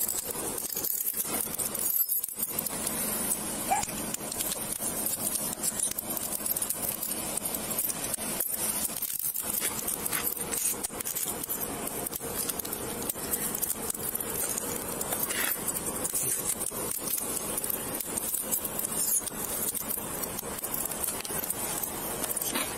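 Keys and small metal gear jangling and clinking steadily, close to a police body camera's microphone.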